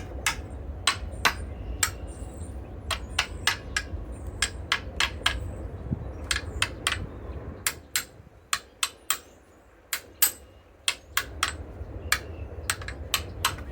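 Hammer blows striking a stuck impact socket and lag screw, trying to knock the socket loose: a long run of sharp, irregular strikes, about two or three a second.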